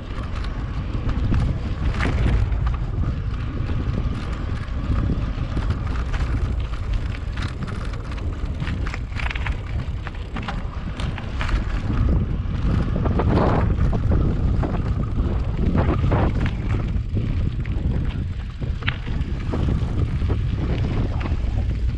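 Wind buffeting the microphone while riding an electric mountain bike: a steady low rumble with scattered short knocks and rattles.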